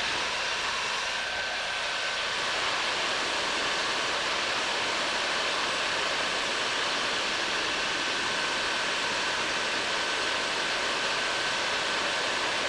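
Bauer heat gun running on its highest setting: a steady rush of blown air with a faint, steady high whine, heating a copper pipe joint for soldering.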